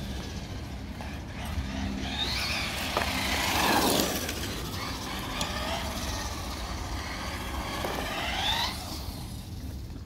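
Traxxas Slash 4X4 Ultimate RC truck driving on asphalt: its electric motor whines up and down in pitch as it speeds up and slows, in two main runs. Tyre and drivetrain noise peaks on the loudest pass, about four seconds in.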